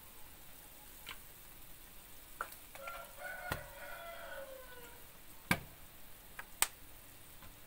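A rooster crows once in the background, one long call about three seconds in that falls in pitch at its end. Sharp clicks of a metal spatula knocking on a steel wok come around it, the loudest two in the second half.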